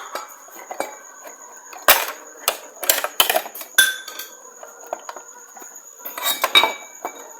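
A rechargeable LED torch's casing being pulled apart by hand, giving a series of sharp clicks and knocks as the housing parts come loose and are set down, with a quick cluster of them near the end.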